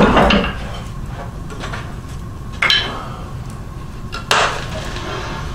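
Two sharp knocks about a second and a half apart as scrap pieces of lumber are put into a wood stove, wood striking the metal firebox.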